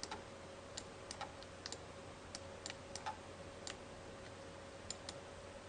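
Faint, irregular light clicks, about a dozen scattered through the pause, over quiet room tone with a faint steady hum.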